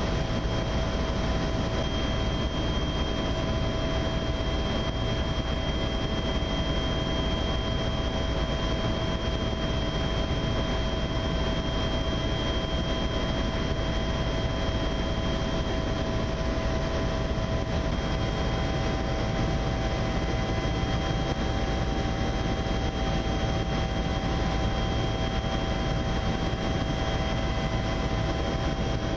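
Steady helicopter cabin noise in flight: an even rushing drone of rotor and engine with a constant high whine, unchanging throughout.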